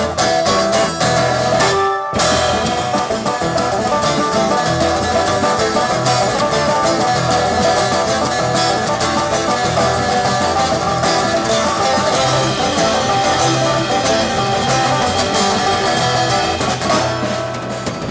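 Bluegrass string band playing an instrumental passage: strummed acoustic guitar, mandolin and banjo over upright bass and a drum kit. The band cuts out for a moment about two seconds in, then comes straight back in.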